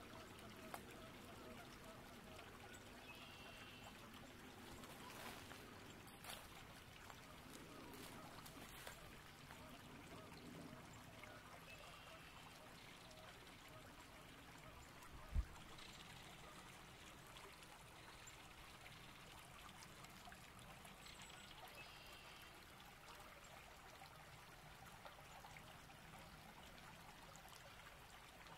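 Faint trickling of a small stream of flowing water, with a single low thump about halfway through.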